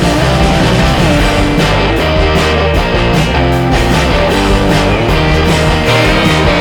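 Background music: rock with guitar and a steady beat, played loud.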